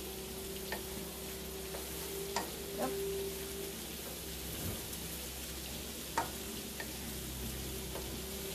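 Vegetables and bean sprouts sizzling steadily in a frying pan as a wooden spatula stirs them. A few light clacks of the spatula against the pan come through.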